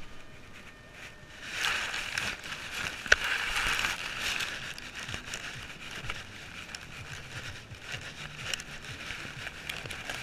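Close-up rustling of grass blades and fur rubbing against a small action camera's housing, with scattered knocks, as a dog noses at it. The rustling starts about a second and a half in.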